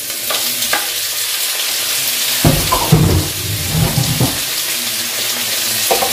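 Food sizzling steadily in hot olive oil in a frying pan, with a few knife clicks on a wooden cutting board in the first second and some louder knocking and scraping about halfway through.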